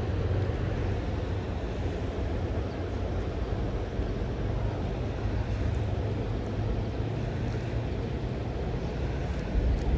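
Steady rush of river water with a low rumble of wind on the microphone.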